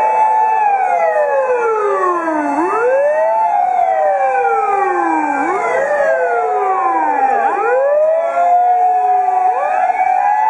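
Several wailing emergency sirens overlap, each sweeping slowly down in pitch and back up about every three seconds.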